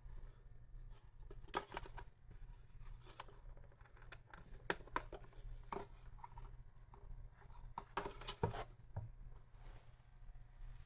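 Handling noises from unboxing the alarm clock and its power adapter: scattered clicks and light rustles of plastic and packaging, coming in a few clusters with the loudest near the end, over a steady low hum.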